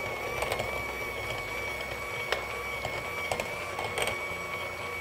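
Electric hand mixer running steadily with a high whine as its beaters whip cream cheese in a glass bowl, with a few sharp clicks of the beaters against the bowl.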